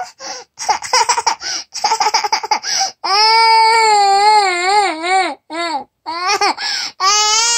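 A two-year-old toddler crying hard in protest at being put to bed: quick choppy sobs, then about three seconds in a long wavering wail, two short cries, and another long wail starting near the end.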